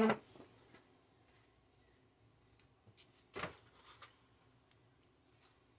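Mostly quiet. There are a few faint taps and one short knock about three and a half seconds in as tools are handled on a workbench.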